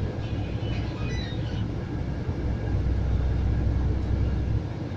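Scania coach's diesel engine and road noise heard from inside the cabin on the move: a steady low rumble that swells for a couple of seconds in the second half.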